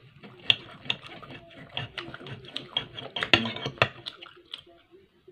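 Steel table knife and fork sawing through a steak on a ceramic plate: repeated sharp clinks and scrapes against the plate, thickest in the middle, stopping about four and a half seconds in.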